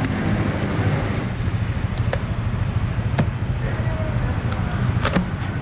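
Steady low street-traffic rumble, with several sharp clicks and snaps about 2, 3 and 5 seconds in as the plastic packing straps around a cardboard box are cut and pulled off.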